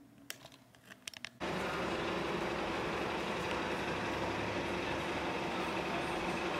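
A few light clicks against quiet room tone. Then, from about a second and a half in, the steady noise of street traffic, with a low engine hum running under it.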